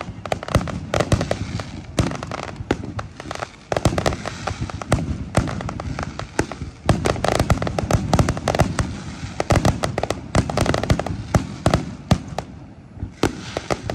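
Fireworks going off in a rapid barrage: many bangs and pops in quick succession with crackling between them, thinning out near the end.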